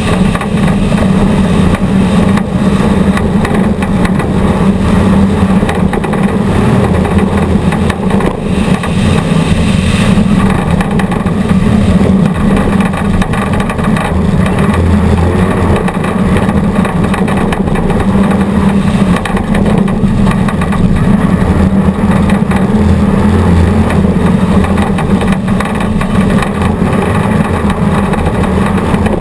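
Off-road race vehicle's engine running loud and hard at speed, holding a fairly steady pitch, with rough road and drivetrain noise over it.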